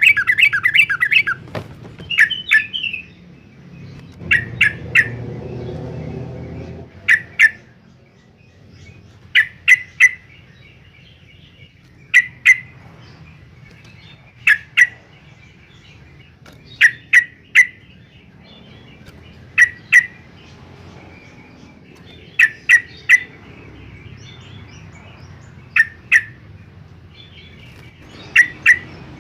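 Yellow-vented bulbul calling: a fast bubbly warble at the start, then short sharp notes in twos and threes every couple of seconds. This is the bird's lively song, used to bait other bulbuls into answering.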